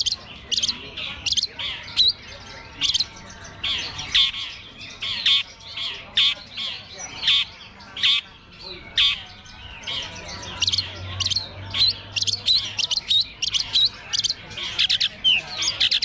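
Long-tailed shrike (cendet) singing in contest, a fast unbroken string of sharp chirps and squawks, several calls a second.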